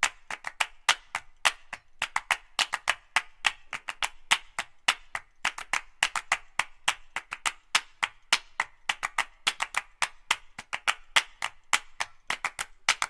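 Rapid, irregular sharp clicks and knocks, several a second.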